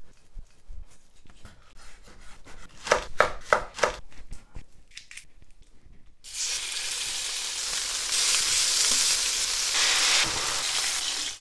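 A few sharp knocks and clicks about three seconds in. Then, starting suddenly about six seconds in, chicken-and-scallion yakitori skewers sizzle loudly in frying pans.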